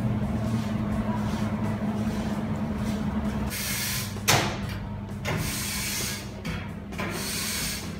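Metal spoon spreading tomato sauce over a stretched pizza base: a wet scraping hiss in repeated strokes from about three and a half seconds in, with a sharp click just after, over a steady low hum.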